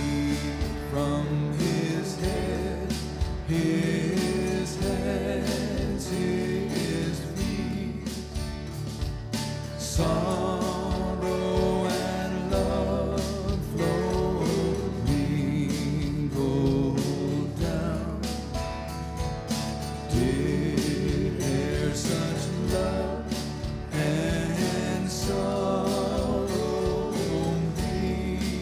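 Live worship band of acoustic guitar, electric bass, drum kit and keyboards playing a slow hymn, with voices singing the verse over it.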